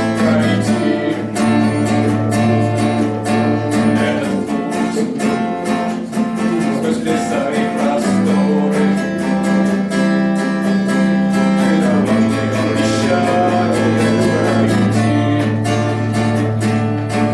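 Music led by a strummed acoustic guitar, over steady sustained low notes, with no words sung.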